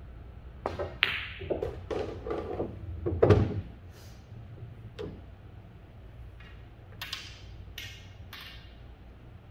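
Pool shot on a Diamond pool table: the cue tip clicks on the cue ball, the cue ball knocks the object ball hard, then a run of knocks ends in a deep thud as the object ball drops into a pocket. Fainter clicks and short scrapes follow as a ball is set back on the table.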